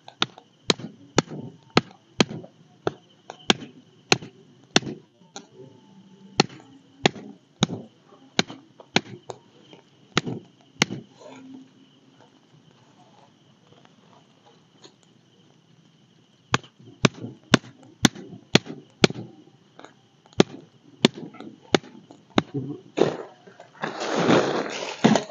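Machete chopping firewood in quick sharp strikes, about two a second, pausing for several seconds midway and then resuming. A louder noisy burst comes near the end.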